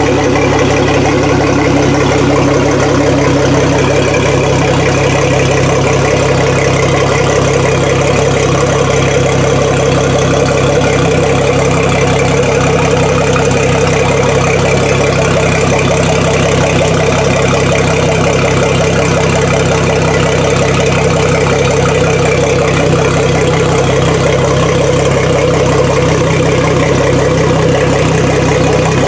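2010 Mercury Verado 250 outboard, a supercharged four-stroke inline-six, idling steadily with its cowling off.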